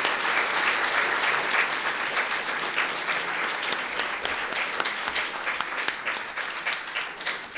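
Audience applauding, a dense patter of many hands clapping that slowly thins out towards the end.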